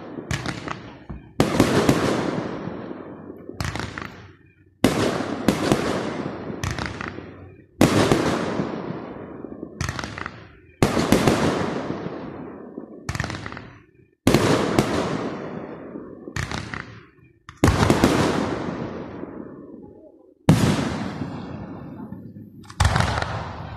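Aerial firework shells bursting in the sky, a string of loud bangs every one to three seconds, each echoing and fading away over a second or two.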